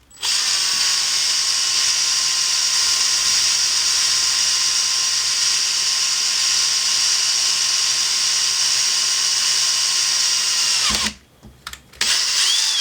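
Electric drill fitted with a 2 mm bit, running steadily with a whine as it bores a hole into an airsoft gearbox shell. It winds down and stops about eleven seconds in, then starts again briefly near the end.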